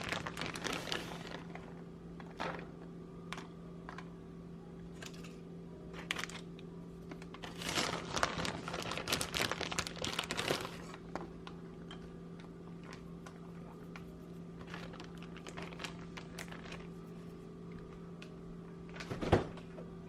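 Kitchen handling sounds: scattered taps, clicks and crinkles of food and utensils being worked into a dish, busiest in the middle, over a steady low hum. One louder knock comes near the end.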